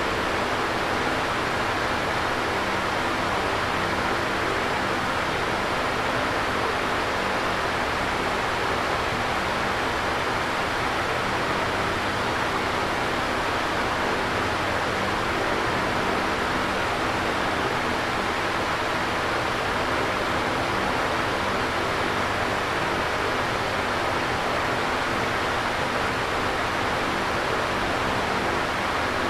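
Electric fan running steadily: an even whooshing air noise with a faint low hum from the motor.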